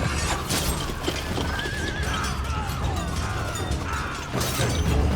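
Horses whinnying several times over a steady low rumble.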